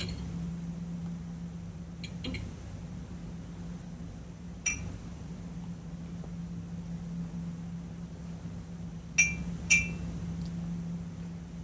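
Dishware and cutlery clinking with a short ring: faint clinks about two seconds in, one near the middle and two louder ones close together near the end. A steady low hum runs underneath.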